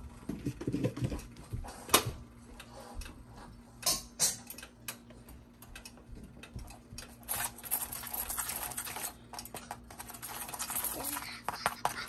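Kitchen sounds of a flatbread cooking in a nonstick frying pan: a few sharp clacks of a utensil on the pan, then stretches of hissing and brushing from about seven seconds in as oil is spread over the bread with a silicone brush. A steady low hum runs underneath.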